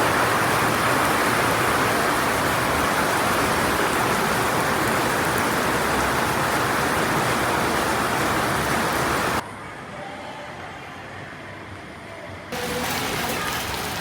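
Heavy rain pouring steadily in a dense, even hiss. About two-thirds of the way through it cuts off abruptly to a much quieter rain sound, then after about three seconds steps back up to a moderate, finer rain patter.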